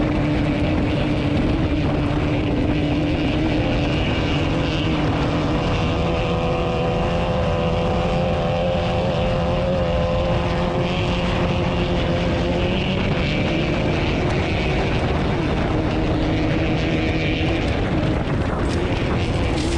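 Onboard sound of a Class 12 off-road race car's engine running hard at fairly steady revs. Its pitch sags and climbs a little, over a constant rush of wind and road noise.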